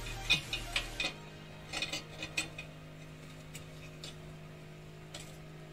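Metal clinks and taps of a motorcycle centre stand and its stainless-steel pull rod being worked by hand: a quick run of clicks in the first second, a few more about two seconds in, then only the odd tick.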